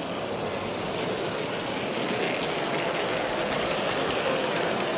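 Model steam locomotive and tender running along layout track close by: a steady mechanical whirring rattle of motor, gearing and wheels on rail, with a few faint clicks, a little louder from about two seconds in as it passes.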